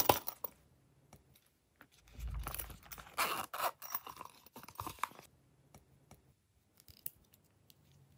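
Close-up handling of a zippered silicone pop-it purse: a sharp click at the start, then a few seconds of rasping, rustling and clicking as the purse's zipper and body are worked open.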